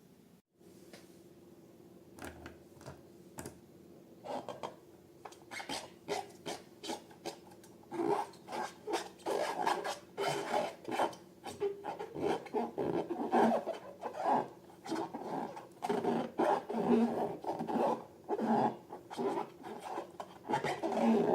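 Irregular rubbing and scraping strokes from handling balloons and slime. They start sparse and become louder and closer together from about a third of the way in.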